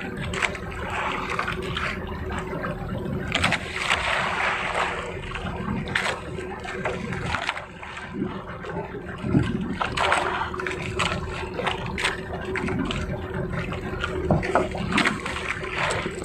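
Small fishing boat's engine running steadily under way, with water splashing and sloshing against the hull in irregular surges.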